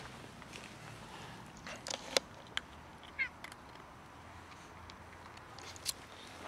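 Tabby kitten meowing in short calls, one about three seconds in, over scattered sharp clicks and crunches of a puppy eating dry kibble from a plastic tub.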